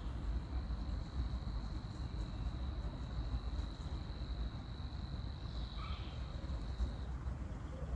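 A high, steady insect trill, held for about seven seconds and then stopping, over a constant low rumble.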